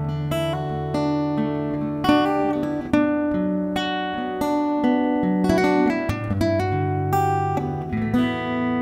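Background music played on acoustic guitar, with notes and chords changing about every second.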